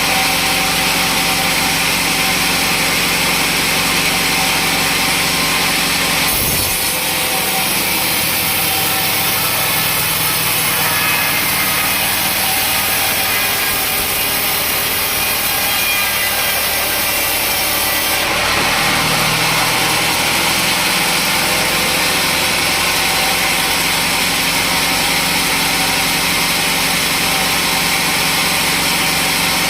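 Sawmill saw running and cutting teak wood, the sound turning hissier from about six seconds in until about eighteen seconds in.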